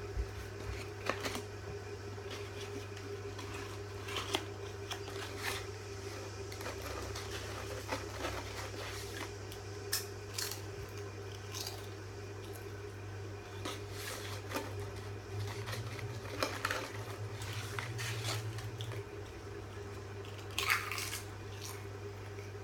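Fidget spinners spinning with a steady hum, with scattered clicks and taps from small objects being handled.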